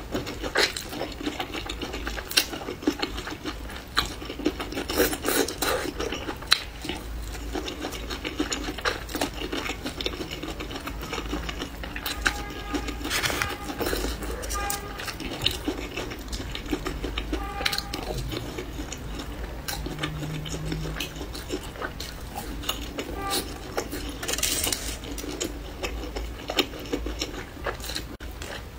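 Close-miked eating: crunching and chewing of skewered green vegetables, with many wet mouth clicks and smacks throughout.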